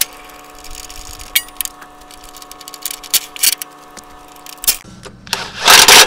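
A few scattered metal clicks and clanks on the sawmill's steel leg jack, then near the end a cordless impact driver hammering for about a second on the jack's set screw.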